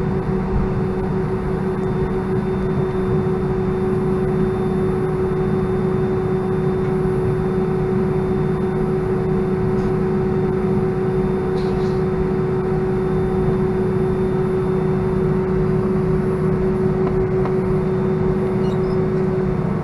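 Cabin noise of an Airbus A319 taxiing after landing: the engines idling, a steady drone with a constant hum-like tone that shifts just before the end.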